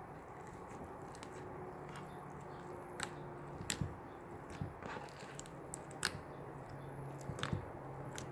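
Clear slime mixed with frog-egg beads being squeezed and kneaded by hand, giving scattered sharp clicks and pops, about eight of them, over a faint steady hum.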